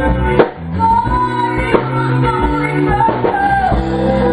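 Live rock jam on amplified electric guitars and a drum kit, with a held lead line that bends in pitch over the chords and a hard drum hit about half a second in.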